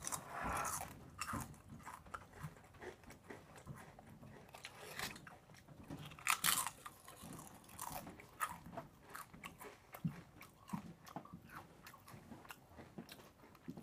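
Pringles potato crisp being bitten and chewed: a string of irregular crisp crunches.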